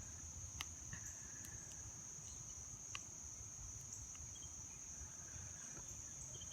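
Crickets trilling steadily at a high pitch, faint, over a low wind rumble on the microphone, with a couple of small clicks.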